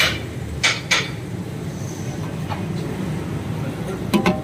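Sharp metal clinks of utensils or dishes at a food stall: two single clinks about a second in, then a quick ringing double clink near the end, over a steady din of street traffic.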